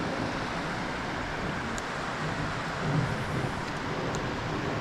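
Steady rushing of flowing creek water, with a couple of faint ticks.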